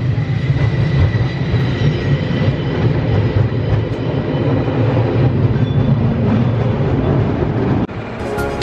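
San Francisco cable car riding along its track, a steady loud rumble and rattle of the car on the rails. The sound cuts off abruptly shortly before the end, and music starts.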